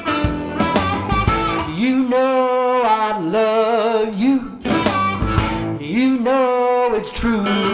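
Electric blues band playing: electric guitar picking a shuffle, with a man singing two long, wavering phrases about 2 seconds in and about 5 seconds in.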